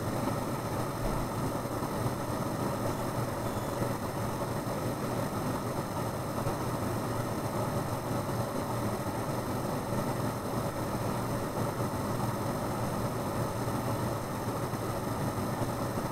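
Steady mechanical hum and hiss, unchanging throughout, with no distinct events.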